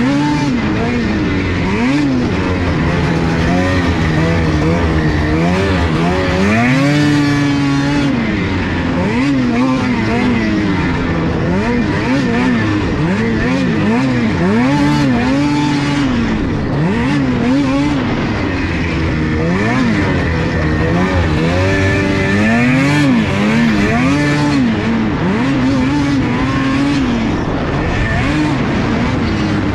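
Ski-Doo snocross snowmobile's two-stroke engine revving up and down over and over as the throttle is worked around the track, with a longer held high rev about seven seconds in. Track and wind noise run underneath.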